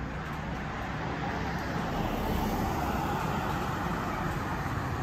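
A car driving past on a street: its engine and tyre noise swells over the first two seconds or so, then stays steady.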